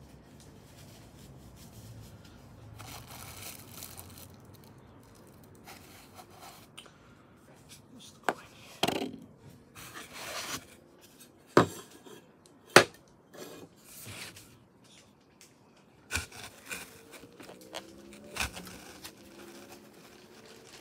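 Hands unpacking a boxed model airplane: cardboard and foam packing rustling and scraping, with scattered sharp clicks and knocks. The loudest are two sharp knocks about a second apart, a little past halfway.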